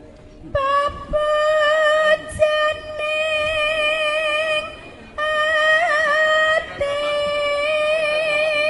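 Javanese sinden (female gamelan singer) singing into a microphone: long held high notes with wavering ornaments, broken by short pauses between phrases.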